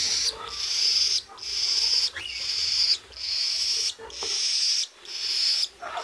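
Budgerigar nestling giving a run of about six hissing, raspy calls, each under a second long with short pauses between.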